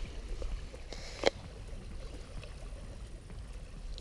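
Quiet lakeshore ambience: a low wind rumble on the microphone and small water sounds at the shore, with one short, sharp sound a little over a second in.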